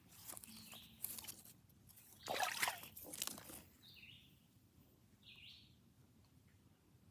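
Rustling, trickling noises for the first few seconds, then two short bird chirps about a second and a half apart.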